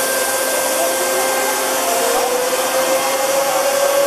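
Parpas XS-100 five-axis CNC machining centre milling a block: the spindle whines steadily over a loud hiss of cutting, its pitch rising slightly about halfway through.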